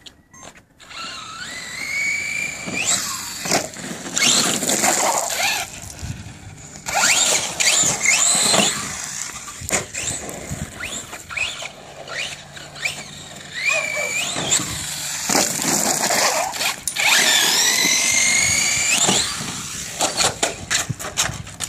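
Brushless electric motor of a DHK Zombie 8E 4WD RC truggy whining and rising in pitch in several hard bursts of acceleration, with tyre noise on concrete and a few sharp knocks.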